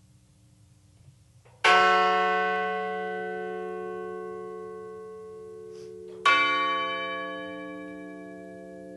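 A memorial bell struck twice, about four and a half seconds apart, each stroke ringing on and slowly fading. It is tolled in remembrance after a victim's name is read.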